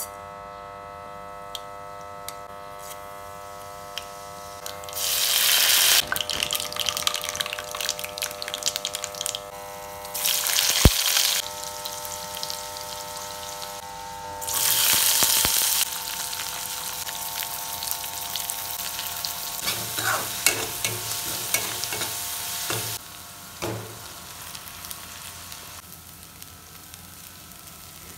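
Hot oil sizzling in a steel kadai as mustard seeds, peanuts, curry leaves, onions and flattened rice (poha) fry, with loud surges of sizzle about five, ten and fourteen seconds in. A spatula scrapes and stirs the pan, most plainly around twenty seconds in.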